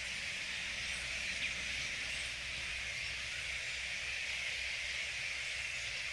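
Steady high-pitched din of wildlife, with no single call standing out.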